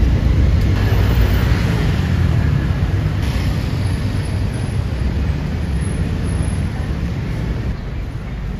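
Busy city street traffic: a steady low rumble of passing buses, cars and motorbikes, slowly growing quieter.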